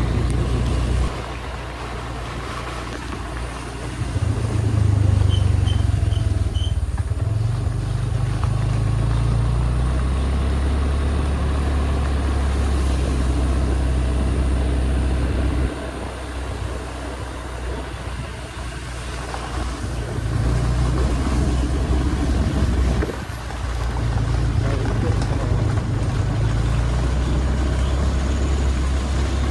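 Motor vehicle driving, with engine and road noise: a low rumble that steps louder and quieter several times.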